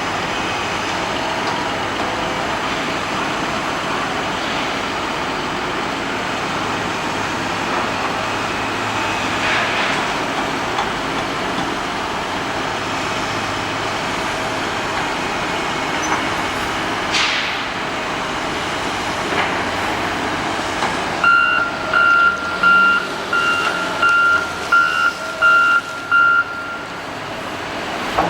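A heavy truck or construction machine's engine runs steadily. About three-quarters of the way through, its reversing alarm starts beeping at a steady pace and keeps going for about five seconds.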